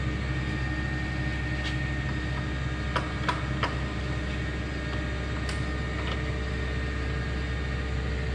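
Monarch 610 Hydro Shift lathe's motor and geared headstock running with a steady hum. A few sharp clicks come about three seconds in and again near the middle as the speed selector dial is turned, after which a new steady tone joins the hum as the spindle shifts to a new speed.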